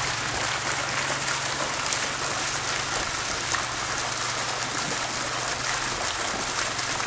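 Running water splashing steadily into a trout pond, an even rain-like hiss, with a low hum underneath that stops about six seconds in.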